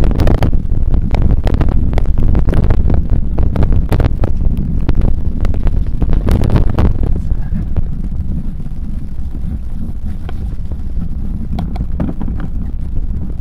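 Bicycle ridden along a rough woodland dirt trail: constant wind buffeting the microphone, with a dense clatter of knocks and rattles from the bike over the bumpy ground for the first seven seconds or so, thinning out to a few scattered knocks after that.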